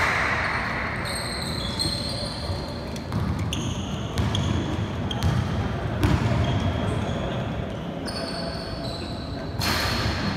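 Basketball game sounds in a gym: the ball bouncing on the wooden court and sneakers squeaking in short chirps as players run, with occasional player shouts.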